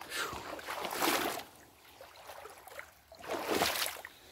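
A person wading through shallow creek water and soft mud: two splashing steps, one at the start and a second about three seconds in.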